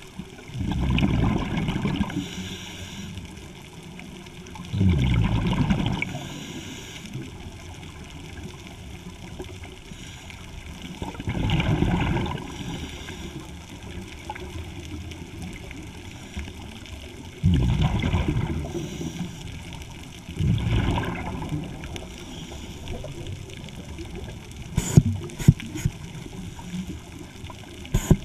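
Exhaust bubbles from a scuba diver's regulator, heard underwater: a rush of bubbles lasting one to two seconds about every five or six seconds as the diver breathes out, with quieter hiss between. A few sharp clicks come near the end.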